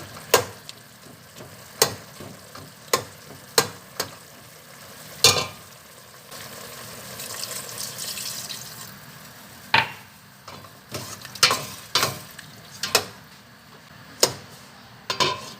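Food frying in a pan while it is stirred, the spatula knocking sharply against the pan about a dozen times over a steady sizzle. The sizzle swells for a few seconds in the middle.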